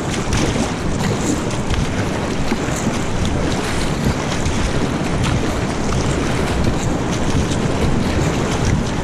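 Steady wind rumble on the microphone over rushing river water, with kayak paddle strokes splashing.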